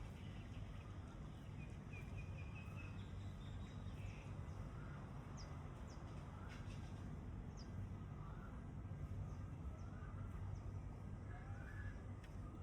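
Birds chirping and calling now and then, with a quick run of short notes about two seconds in, over a steady low rumble of outdoor ambience.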